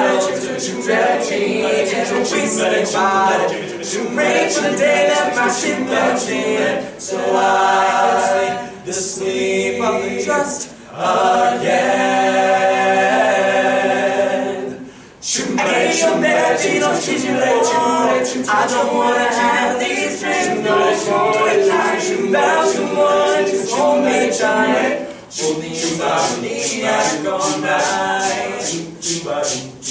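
All-male a cappella group singing a pop song in close harmony over a steady percussive beat. About halfway through they hold a chord, break off briefly, then come back in.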